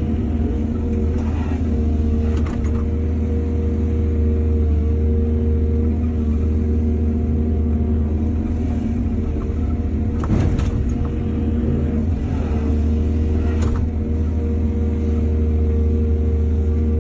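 Excavator's diesel engine running steadily under load, with a few short metallic knocks and scrapes from the working machine.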